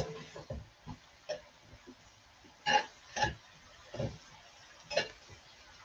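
Wooden spoon scraping and knocking against a non-stick frying pan as browning mince is stirred, in short irregular strokes, about eight of them. A faint sizzle runs underneath.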